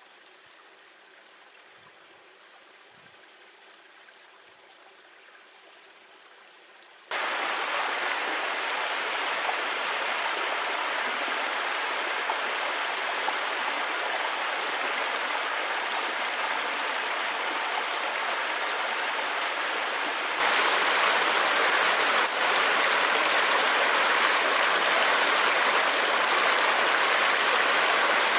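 Creek water rushing, an even noise with no rhythm. It is faint at first, jumps abruptly much louder about seven seconds in, and steps louder again about twenty seconds in.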